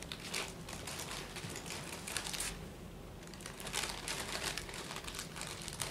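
Crisp packet crinkling as it is handled, in irregular rustles, with a short lull about three seconds in.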